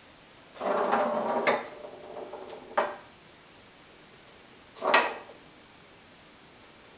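Foosball table rods sliding and rattling in their bearings and the plastic players clacking as a kitten moves across them: a sliding rattle about a second long, then a few sharp knocks, the loudest about five seconds in.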